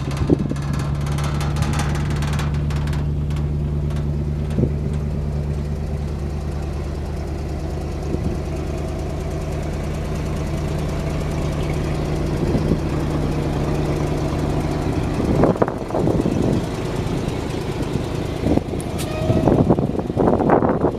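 1979 International S-series straight truck's engine idling steadily, then shutting off about fifteen seconds in. A few knocks and clunks follow.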